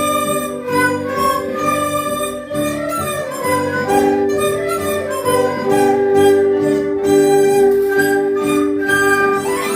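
Chinese traditional ensemble of erhu, bamboo dizi flute, guzheng, zhongruan and liuqin playing a children's-song medley together: held melody notes over plucked strings, with a rising slide near the end.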